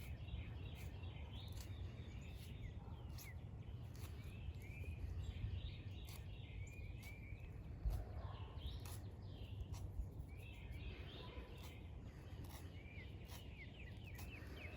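Faint birds chirping, many short repeated chirps, over a low steady rumble of outdoor background noise, with a soft knock about eight seconds in.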